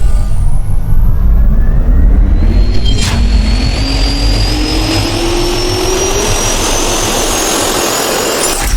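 Intro riser sound effect: a loud rushing swell with a tone that climbs steadily in pitch over several seconds, with a brief click about three seconds in, ending in a hit near the end.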